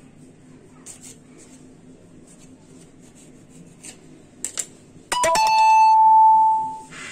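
A loud electronic chime about five seconds in: a brief higher note, then a lower note held about a second and a half, fading out. Before it, a few faint taps of a knife on the marble slab.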